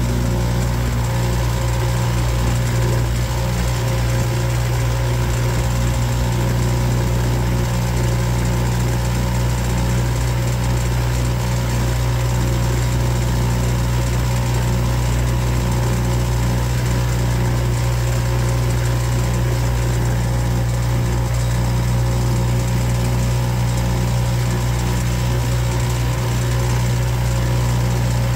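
Boat engine running at a steady speed, a constant low drone that holds one pitch throughout.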